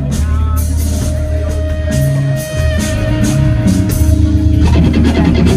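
Rock band playing: an electric guitar holds a long sustained note over bass and drums.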